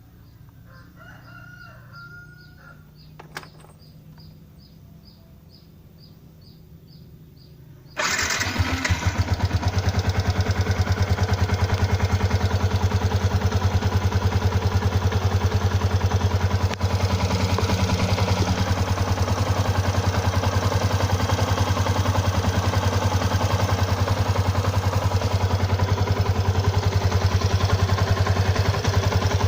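A Yamaha Exciter 150's single-cylinder, liquid-cooled engine is started on the electric starter about eight seconds in and then idles steadily with an even firing beat. The owner wonders whether the engine noise is rocker-arm (valve) tick or clutch noise, and says the revs dip unevenly for a few seconds after starting.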